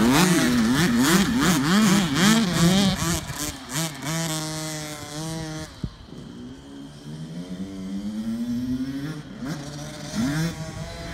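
Small kids' dirt bike engines revving up and down as they ride, the pitch climbing and dropping with each twist of the throttle. About six seconds in the sound drops to a quieter, farther bike whose engine rises steadily in pitch as it accelerates, then revs up and down again near the end.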